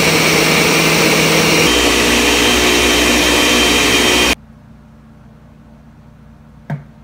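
Countertop blender motor running at full speed, blending spinach and coconut milk into a smoothie. Its pitch shifts a little under two seconds in, and it stops abruptly after about four seconds.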